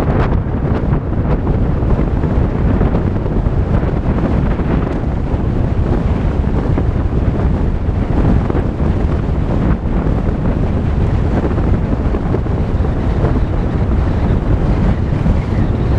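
Volkswagen Tiguan driving on a dirt road: a steady, loud rumble of tyres and body on the unpaved surface, mixed with wind buffeting the microphone.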